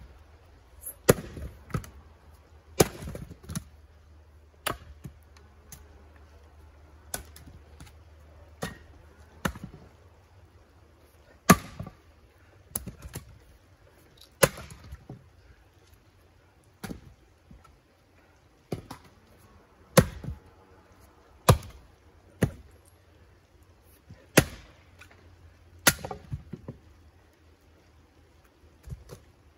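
An axe splitting firewood rounds: about twenty sharp chopping strikes, one every one to two seconds, some much louder than others.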